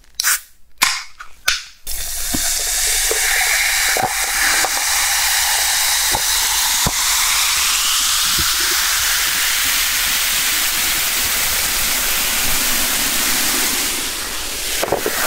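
Can of cola opened with a few sharp clicks, then poured over ice into a glass mug: a loud, steady fizzing hiss of carbonation with scattered crackles and pops, easing off near the end.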